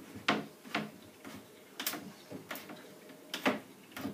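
Sharp, irregular clicks and knocks from a white wooden handrail being fitted to a bunk bed's step unit while its screws are started.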